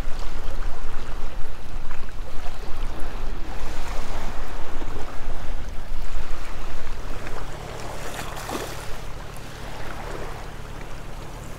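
Strong wind buffeting the microphone over small waves washing against jetty rocks; the wind eases about seven and a half seconds in.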